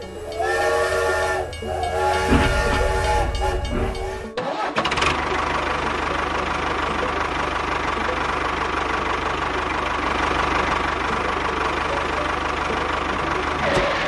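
Steam locomotive whistle blown twice, a chord of several steady tones, the second blast longer. About four seconds in it gives way to a steady hissing, rumbling engine-like running sound that carries on.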